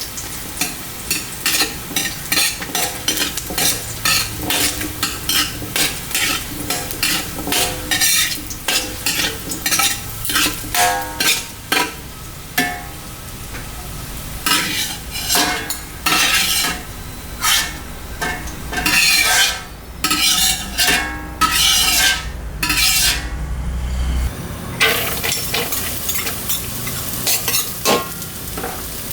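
Metal spatula scraping and stirring fried rice around a hot wok, quick repeated scrapes over a steady sizzle. A low hum runs underneath through the middle and cuts off about 24 seconds in.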